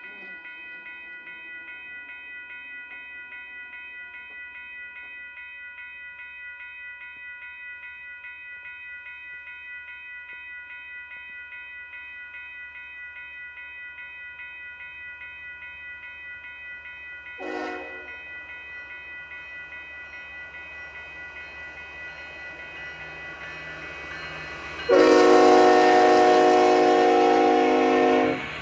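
Diesel freight locomotives' air horn sounds a short blast about two-thirds of the way through, then a long, loud blast near the end, over the low rumble of the approaching locomotives. Before the horn, a bell rings steadily with a fast, even pulse.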